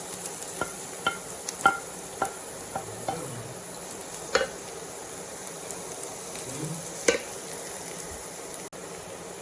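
A spoon stirring a potato, onion and carrot filling frying in a pan: a steady sizzle, with the spoon clicking against the pan several times in the first three seconds and louder knocks about four and seven seconds in.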